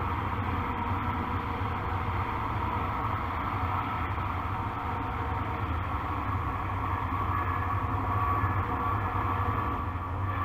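Steady outdoor background rumble and hiss, with a faint steady hum and no distinct events.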